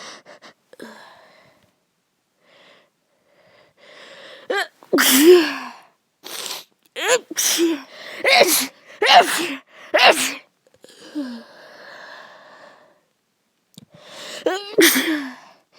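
A person in an allergic sneezing fit: about eight loud sneezes one after another, with breathy inhales between them.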